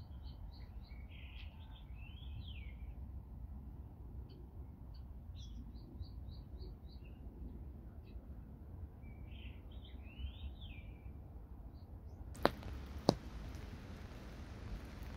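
Small songbirds chirping in short runs of high repeated notes and quick falling calls, over a low wind rumble. About twelve seconds in it changes to rain falling on an open umbrella overhead: an even hiss with two sharp drop taps.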